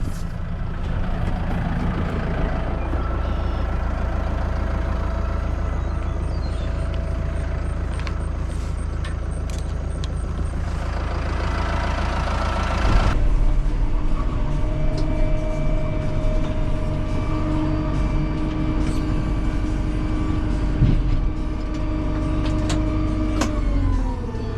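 Farm machinery engine running steadily under load, hauling a scoop of silage. The sound changes abruptly about halfway through, and the engine slows with its pitch falling just before the end.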